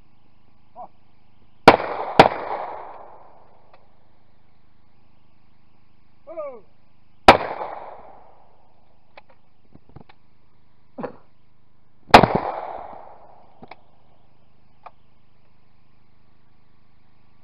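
Shotgun shots at clay targets, close by and each ringing out in an echo: a quick double about two seconds in, the two shots half a second apart, then single shots about five and ten seconds later. A short falling call comes just before the middle shot, and faint clicks fall between the shots.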